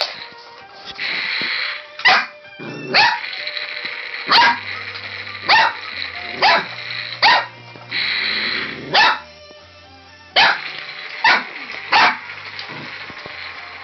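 Red merle border collie puppy barking, about eleven sharp, high barks at uneven intervals roughly a second apart.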